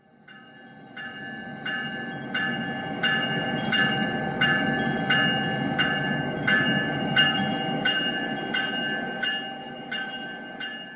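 Locomotive bell ringing steadily, about three strikes every two seconds, over the low rumble of a train. It fades in at the start.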